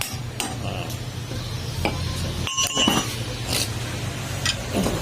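Scattered metal-on-metal clinks and taps, about one a second, over a steady low machine hum: work on steel parts while the valve guides of a diesel cylinder head are being replaced.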